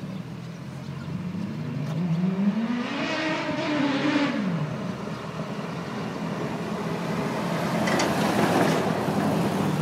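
Heavy truck approaching and passing close by: its engine note rises in pitch, holds, then drops, and a rush of tyre and road noise peaks as it goes past near the end.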